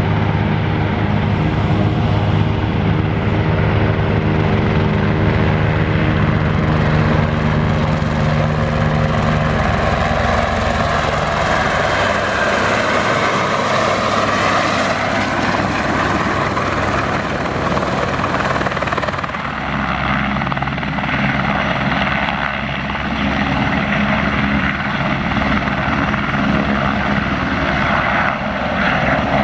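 Airbus H125 single-engine helicopter running, its rotor and turbine loud and continuous. A low rotor hum dominates at first, then gives way to a higher rushing whine, with a shift in the sound about two-thirds of the way through.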